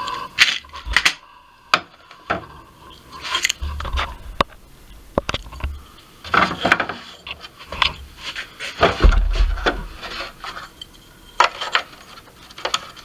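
Handling noise as a cut piece is test-fitted into the light mount on a lawn tractor hood: irregular clicks, knocks and scrapes, with two duller thumps, about four seconds in and about nine seconds in.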